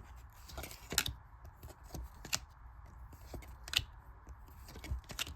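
Trading cards being flipped through by hand: soft sliding and rustling with sharp card snaps, the loudest about one, two and a half, and nearly four seconds in.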